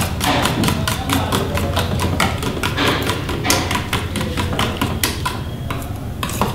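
A spoon beating spices into a paste in a small steel bowl, clicking rapidly and evenly against the metal, several strokes a second.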